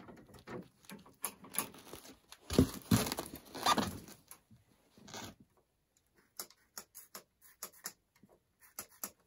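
Hands working at the engine of a 1970 Ski-Doo Olympic snowmobile, engine not running: irregular clicks, taps and rustling of parts and a shop towel being handled, busiest about three seconds in, then sparse clicks.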